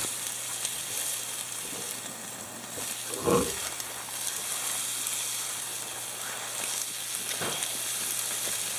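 Steak and a skillet of mushrooms and bacon grease sizzling steadily over a charcoal grill, a continuous frying hiss. A brief low murmur about three seconds in.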